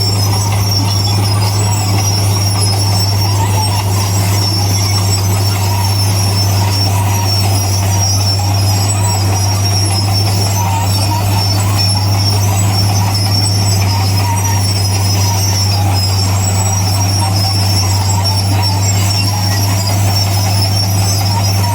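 Bulldozer's diesel engine running steadily at working revs, with a steady high whine over its low drone.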